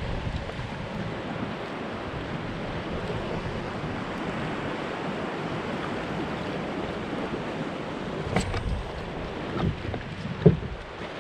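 Steady wind and sea noise, with a few sharp knocks near the end, the loudest about ten and a half seconds in.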